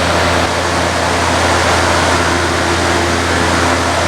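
Vintage General Electric W-26 five-blade box fan running steadily on high speed in reverse: a constant rush of moving air over a low, steady motor hum.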